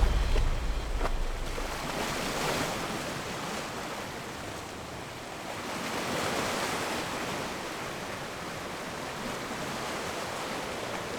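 Ocean surf: a steady hiss of waves that swells and eases slowly, with the low end of the previous track dying away in the first second.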